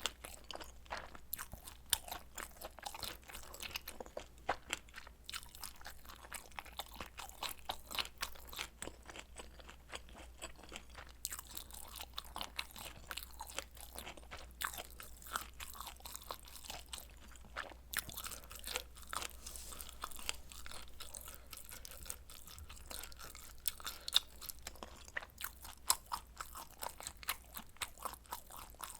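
A person chewing food close to the microphone: wet chewing with many small crunches and clicks, several each second, irregular in spacing. The food is spicy stir-fried noodles and kielbasa sausage.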